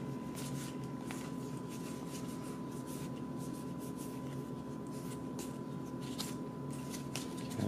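Trading cards (Magic: The Gathering) being fanned and slid through the hands, with soft, light flicks and scrapes of card stock over a steady low electrical hum.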